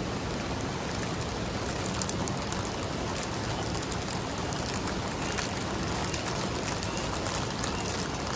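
Dry macaroni poured from a plastic bag into a pot of water: light crinkling and small ticks and patters, over a steady rushing noise.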